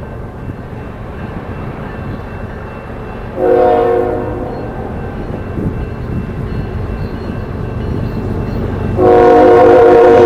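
Freight locomotive air horn sounding for a crossing: a blast about three and a half seconds in that fades off, then a long, loud blast starting near the end, over the low rumble of the approaching train.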